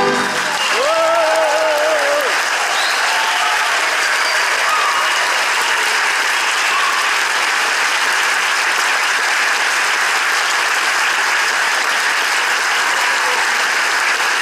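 Audience applauding steadily after the music ends, with one voice holding a short wavering cheer about a second in.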